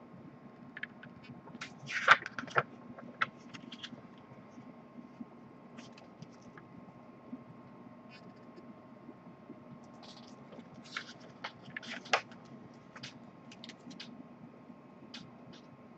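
Paper pages of a glossy booklet being handled and turned: scattered rustles, crinkles and small clicks, with the loudest crackles about two seconds in and again around eleven to twelve seconds. A faint steady hum sits underneath.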